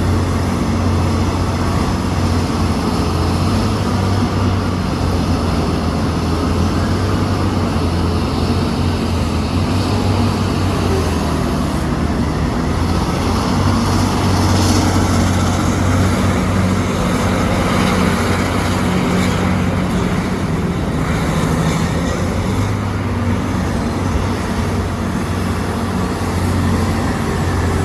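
Large excavator's diesel engine running steadily at working speed, a continuous low drone.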